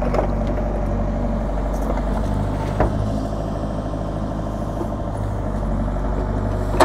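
Mini excavator's diesel engine running steadily as it digs into a bank of sandy earth, with two short knocks, about three seconds in and near the end.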